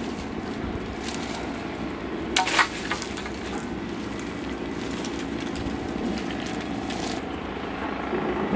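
Mango tree branches and leaves rustling as they are pulled down by hand to pick green mangoes, with a few sharp cracks of twigs about two and a half seconds in, over a steady background hiss.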